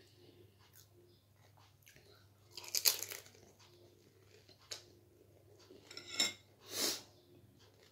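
A person biting into and chewing crisp snack food (panipuri and chatpate): a loud crunch about three seconds in, a sharp click a little later, and two more crunches near the end, with quiet chewing between.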